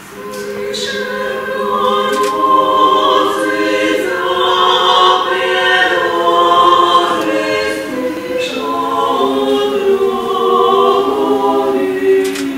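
A women's vocal ensemble of five voices singing slow, sustained chords in harmony, starting softly and swelling over the first couple of seconds.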